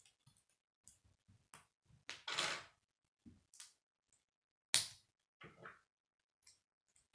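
Plastic K'nex rods and connectors clicking and snapping together as pieces are fitted by hand: scattered light clicks, a short scraping rattle about two seconds in, and one loud sharp snap about five seconds in.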